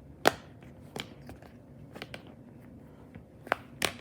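Simple dimple fidget toy's bubbles being pushed in on its loud side, giving sharp single clicks at uneven intervals, about six, the strongest near the start.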